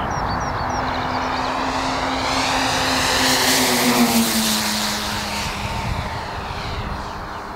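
ASM F7F Tigercat twin-engine RC scale model plane making a low, fast pass: the steady drone of its engines and propellers swells to its loudest about four seconds in, then drops in pitch as it goes by and fades.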